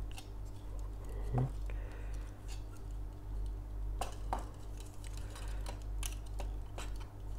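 Hard plastic parts of a Figure-rise Standard Amplified Omegamon X-Antibody model kit clicking and clacking as its joints are moved and parts handled, with a few sharper clicks about four seconds in, over a steady low hum.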